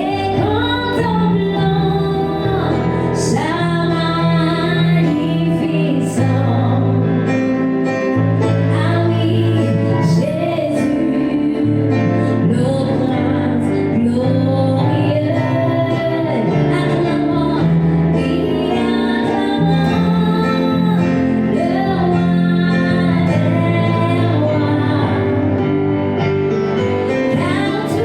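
Worship song: a woman singing over a steady accompaniment of guitar and bass.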